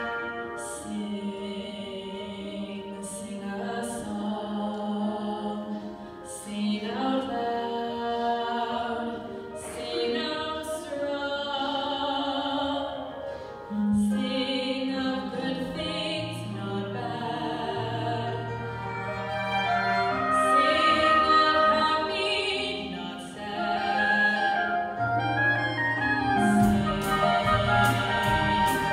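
A church choir singing with instrumental accompaniment, low bass notes sounding underneath the voices.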